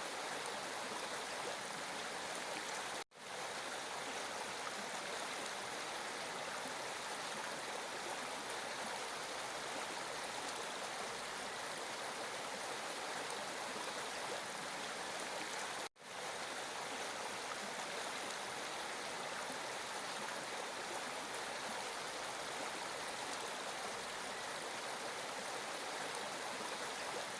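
Steady rushing of flowing stream water, cutting out for an instant twice, about three seconds in and again about sixteen seconds in.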